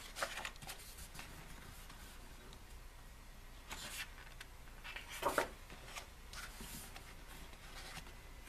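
Glossy photobook pages turned by hand: a few soft paper rustles and slides, the loudest about five seconds in.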